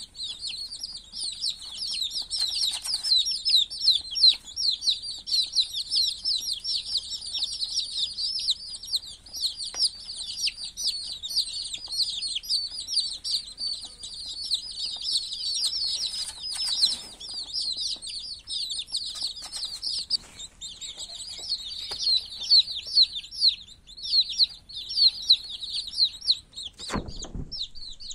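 A brood of young chicks peeping continuously, a dense chorus of short, high chirps. A single dull thump comes near the end.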